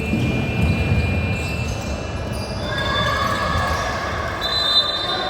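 Basketball game in play: a ball bouncing on the court among irregular thuds of play, with long steady high-pitched tones held over it, one in the first half and a group of several from about halfway on.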